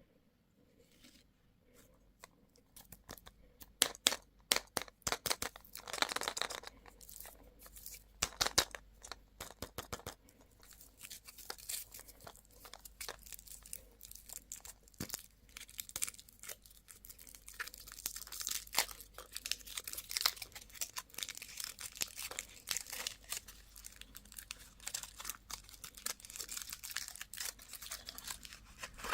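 Candy wrappers being crinkled and torn open: a dense run of crackles and sharp crinkling clicks, with the loudest cracks a few seconds in.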